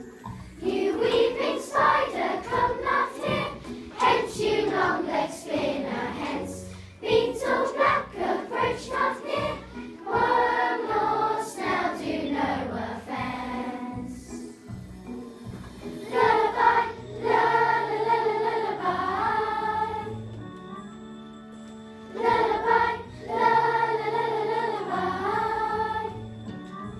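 A group of children singing together with musical accompaniment, with two short pauses in the singing, about halfway through and again near the end, where the accompaniment carries on quietly.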